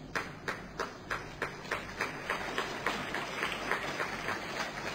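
Audience clapping in a steady rhythm, about three claps a second, slowly fading.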